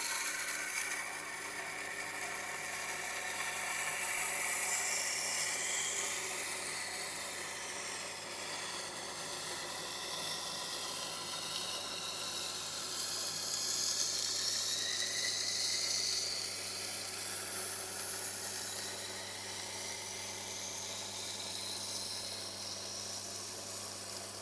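A long steel knife blade ground on the rotating stone of a Tormek wet sharpener: a steady hiss of steel on stone that starts abruptly and shifts in pitch as the blade is drawn along, over the machine's low motor hum.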